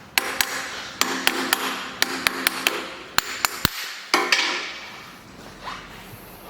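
A hammer striking metal about a dozen times in irregular taps over the first four seconds, each hit sharp with a short metallic ring.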